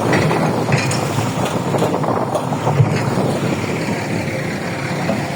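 An engine running steadily, a dense low rumble with a few faint knocks.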